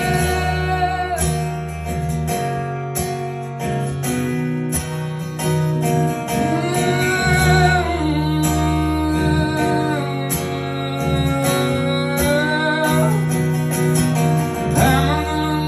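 A live band plays the closing instrumental bars of a song: guitar over held bass notes, with a melody line that bends and wavers in pitch.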